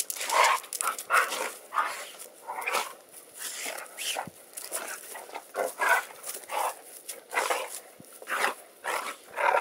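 Two retriever dogs play-fighting, vocalizing in short, irregular bursts of rough barking and growling, several a second.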